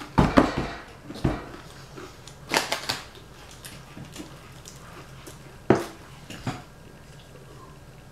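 Tortilla chips being crunched and handled: a few short crunching noises and knocks in separate bursts, the loudest about a quarter second in and near six seconds.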